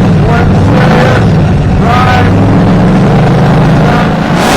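A motor vehicle engine running steadily and loud, close by, with a low even rumble. Brief higher-pitched sounds come and go over it.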